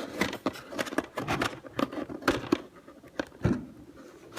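Hands prying and pulling at the black plastic discs on the underside of a toy keyboard: a string of irregular clicks, taps and short scrapes of plastic.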